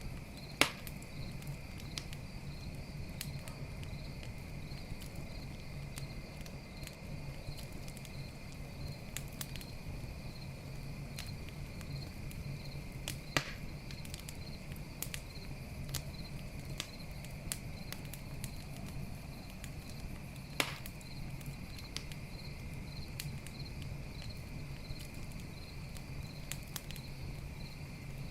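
Campfire crackling, with scattered snaps and three loud pops spread through, over the steady pulsing chirp of night crickets and a low steady hum.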